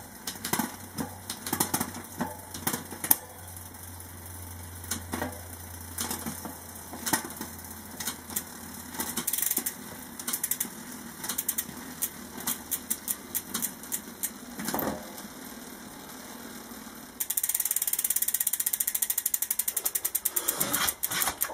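Rear drivetrain of a SRAM XX1 mountain bike on a stand, the cassette spinning with irregular clicks and ticks from the chain and rear derailleur. About 17 seconds in, a fast, even ticking takes over, typical of a rear hub's freehub pawls as the wheel coasts while the cassette stands still.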